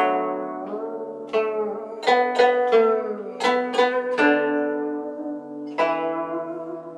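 Guzheng played solo: single plucked notes, several in quick succession then a longer gap, each ringing and fading, with some notes bent in pitch by the left hand pressing the strings beyond the bridges.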